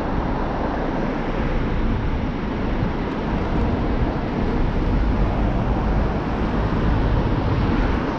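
Steady low rumble and hiss of a car in slow city traffic, with no distinct events standing out.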